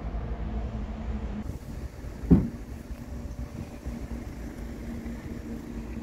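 Steady low hum of an idling vehicle engine, with one sharp thump about two seconds in.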